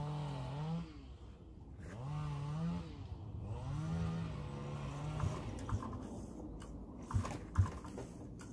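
Single-cylinder two-stroke Moster 185 paramotor engine being turned over by its recoil pull-starter on a cold start: three pulls about two seconds apart, each a short whirr rising in pitch, and the engine does not catch. A few sharp clicks near the end.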